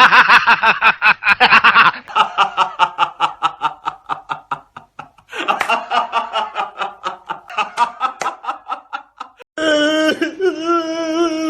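Comedy sound-effect clips of people laughing, three different rapid, pulsing laughs cut one after another. Near the end it changes to a drawn-out, wavering voice.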